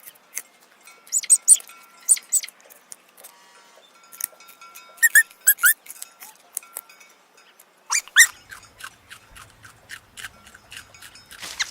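Cartoon sound effect of a rabbit nibbling: clusters of quick, crisp crunching clicks with a few short squeaks, over light background music.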